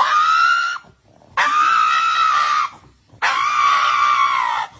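Pug screaming in three long, high-pitched cries, the last two longer than the first, in an exaggerated protest at having its nails clipped.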